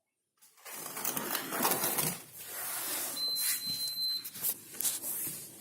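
Hotpoint 3D Zone dishwasher starting its wash cycle: a rushing noise of water and pump that swells and ebbs, with scattered knocks. A thin, steady high tone sounds for about a second, a little past halfway.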